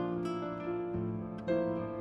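Soft background music of plucked-string notes, a new note sounding about every half second.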